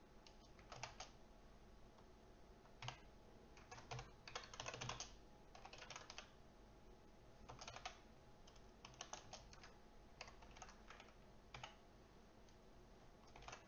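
Faint computer keyboard typing: short bursts of keystrokes with pauses between the bursts.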